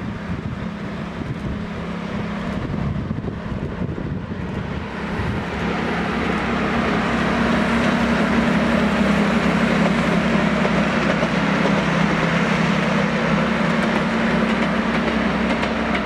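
Lyd1 narrow-gauge diesel locomotive running under load as it pulls a passenger train past, its engine a steady drone with one constant low note. It grows louder as it draws near and stays loud from about halfway on as it passes close by.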